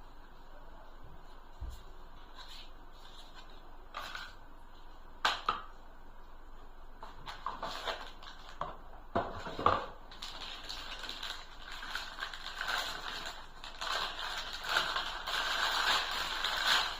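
Handling noises: a few scattered knocks and clicks, then dense crinkling and rustling from about ten seconds in, like packaging being handled.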